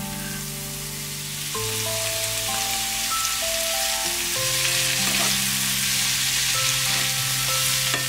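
Grated zucchini and carrot sizzling in hot oil in a frying pan as they are tipped in and stirred with a spatula, the sizzle growing louder about a second and a half in.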